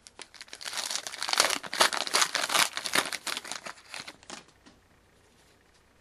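Wrapper of a hockey trading-card pack crinkling and tearing as it is ripped open and handled, a dense crackle lasting about four and a half seconds before it stops.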